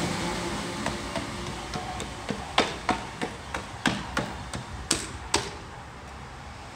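Wheels of a departing passenger train clacking over rail joints and pointwork, a string of sharp clicks about three a second that fade away after about five seconds, over the dying rumble of the train.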